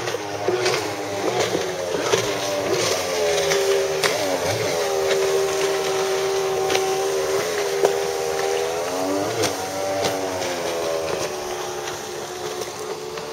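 Polaris MSX 140 personal watercraft's freshly rebuilt two-stroke Ficht engine running at speed while being broken in. Its pitch rises about three seconds in, holds steady, dips briefly near nine seconds, then climbs again. Sharp slaps and splashes from the hull on the chop are mixed in.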